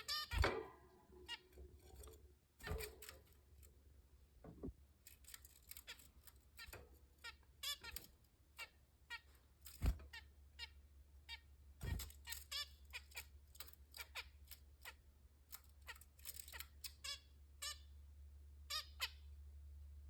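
Zebra finches calling: many short, high calls in quick succession throughout, with a few dull thumps among them and a steady low hum underneath.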